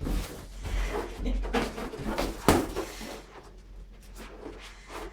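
Rustling handling noises of objects being picked up and moved about, with a sharp knock about two and a half seconds in.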